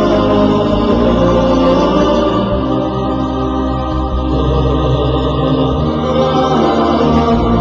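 Opening theme music of sustained, layered vocal chanting.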